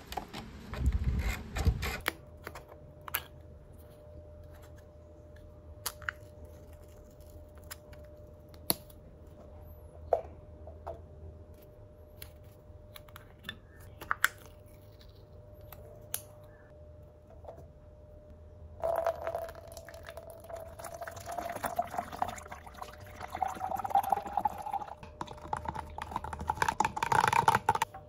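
Water poured steadily from a jug into a tall plastic cup, the pitch rising as the cup fills, starting about two-thirds of the way in. Before it, plastic packaging crinkling at the very start, then scattered small clicks and taps as coffee capsules are torn open over the cup.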